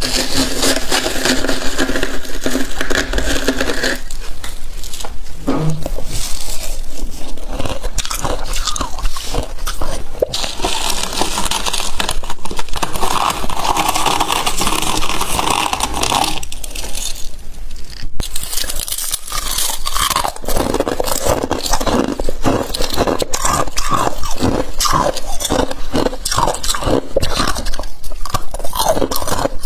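Close-up crunching and chewing of fluffy freezer frost ('humidifier frost'), bitten in mouthfuls with squeaky crunches. In the second half comes a quicker run of short crunches.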